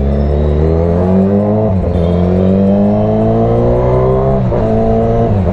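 TVS Raider 125 motorcycle's single-cylinder engine accelerating through the gears: its pitch climbs steadily and falls back sharply at an upshift about two seconds in, then climbs and falls again at a second upshift about four and a half seconds in.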